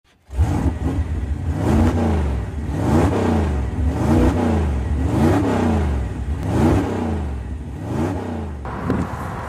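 Engines rising and falling in pitch over and over, about once every second and a bit, over a steady low drone.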